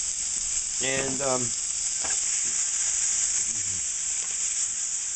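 Linguiça sausage, green peppers and onion sizzling in butter in a hot skillet: a steady frying hiss.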